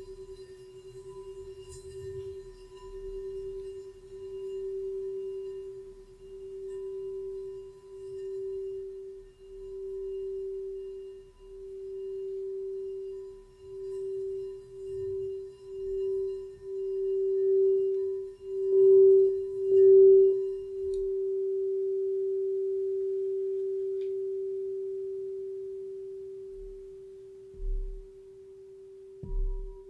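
Quartz crystal singing bowl rimmed with a mallet: one steady pure tone that wobbles in regular swells, the swells quickening and growing louder. About two-thirds in the wobble stops and the bowl rings on as a smooth tone, fading slowly. Two soft low knocks near the end.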